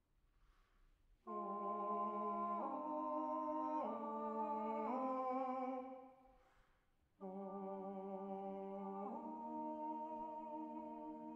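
Two unaccompanied voices hold long, slurred notes in close harmony in two phrases. The first begins about a second in and steps through several pitches before stopping. The second begins after a short pause, shifts pitch once and is still sounding at the end.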